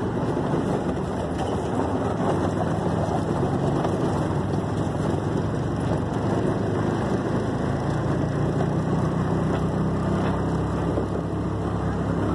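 A moving vehicle's engine and road noise heard from inside it: a steady drone with an engine hum that grows a little stronger in the second half.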